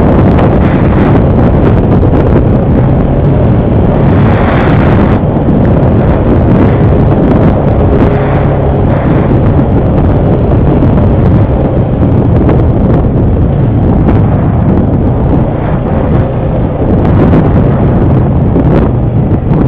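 ATV engine running steadily under way, with wind buffeting the microphone and a few short knocks.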